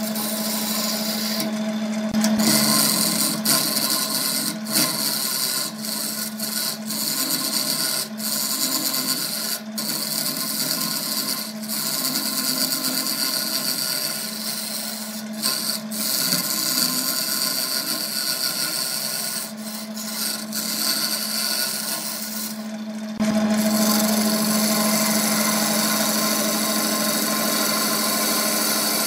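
Wood lathe spinning a glued-up wood blank while a hand-held chisel cuts into it: a steady motor hum under a coarse scraping hiss, with brief dips now and then. The cutting turns steadier and louder for the last several seconds.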